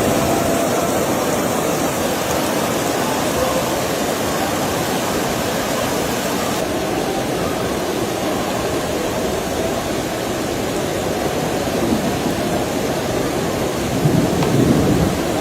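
Heavy downpour of rain making a steady rushing noise, with a louder low swell about fourteen seconds in.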